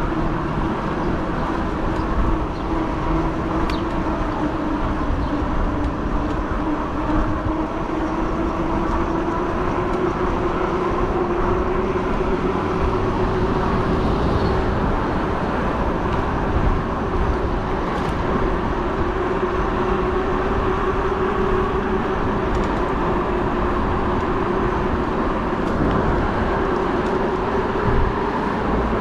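Fat-tire e-bike riding along: a steady whine that slowly rises in pitch over a constant rumble of tyres and wind.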